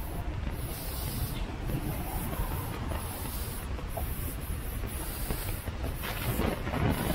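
Outdoor street ambience: a low, uneven rumble of wind on the microphone under a steady hiss. A louder rush of noise builds about six seconds in.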